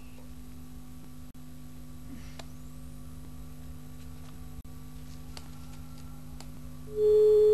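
Steady low electrical hum, then near the end a loud, steady telephone line tone lasting about a second, as a caller's line comes onto the air.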